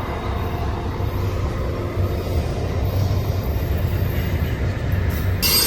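Intermodal freight train rolling past while braking to slow down, a steady low rumble of cars on the rails. About five seconds in, a high-pitched squeal from the braking wheels sets in suddenly.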